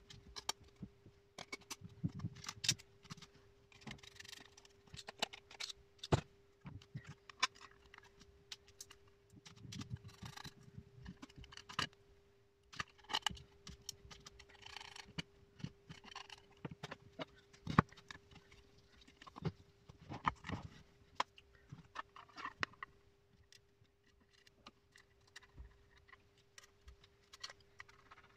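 Small metal hardware being handled on a table: screws and nuts clinking in a metal tin, with scattered clicks and a few sharper knocks as a drilled panel is picked up and moved. A faint steady hum lies underneath.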